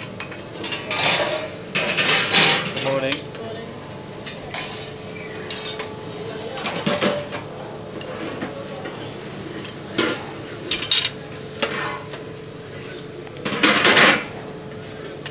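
Stainless-steel chafing dish lids and serving utensils clattering and clinking against the metal dishes and a plate, in several bursts, the loudest near the end.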